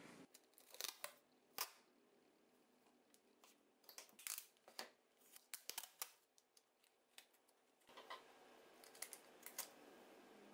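Clear packing tape being handled and pressed onto a wooden block: irregular short, sharp crackles and clicks in three bursts, with near silence between them.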